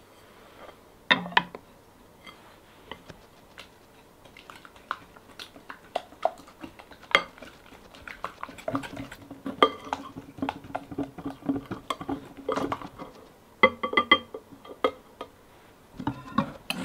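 A silicone whisk beating eggs in a glass bowl set over a saucepan of hot water, with quick irregular taps and scrapes against the glass and a few ringing clinks.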